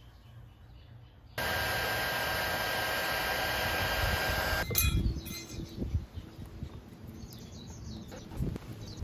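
Mini 300 W heat gun running with a steady fan hiss and whine, warming an adhesive-backed emblem to soften its glue. It starts abruptly about a second in and stops with a click about halfway through, and is followed by quieter knocks and rubbing as a plastic scraper works at the emblem.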